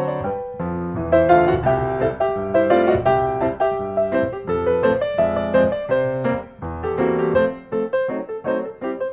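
Background piano music: a light tune of quick notes over bass chords.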